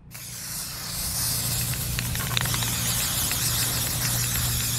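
Aerosol spray-paint can spraying continuously onto the surface of a bucket of water, a steady hiss.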